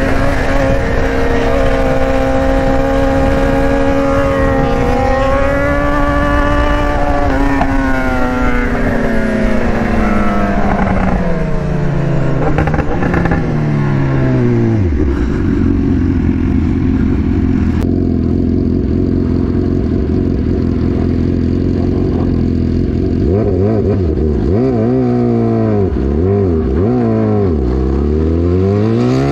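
BMW S1000R inline-four engine heard from the rider's seat, with wind noise: it holds steady revs, then the revs fall for several seconds as the bike slows on engine braking. Later the note sits low, swings quickly up and down a few times, and climbs again near the end as the bike accelerates.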